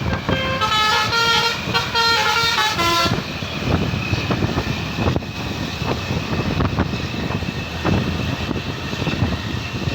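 Multi-tone 'telolet' bus horn playing a quick tune of stepping notes for about three seconds, then a noisy stretch of vehicle sound.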